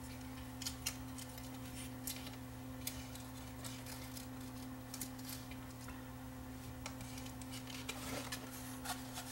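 Faint, scattered clicks and taps of a plastic 8-track tape cartridge being handled and its tape fiddled into place, over a steady low electrical hum.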